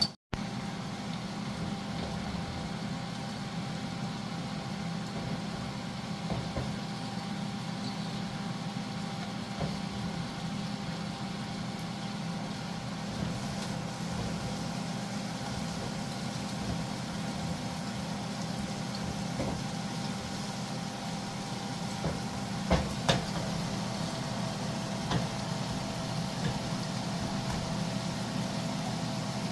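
Steady low mechanical hum in a kitchen while a pot of chicken curry cooks on the stove, with a faint steady whine that drops slightly in pitch after a couple of sharp knocks about 23 seconds in.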